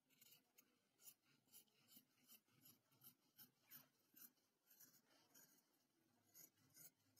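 Scissors cutting through denim: faint, crisp snips at about two to three a second, with a short pause about five seconds in before the snipping resumes.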